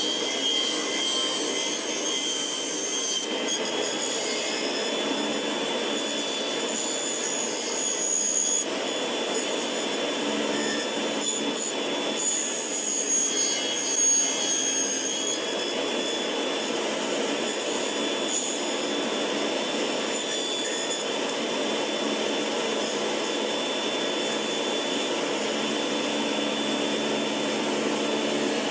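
Stationary circular saw running, its blade cutting into a wooden workpiece held in a carriage to form a round tenon on its end. A steady whine throughout, with the cutting swelling and easing in the first half and settling to an even sound after about fifteen seconds.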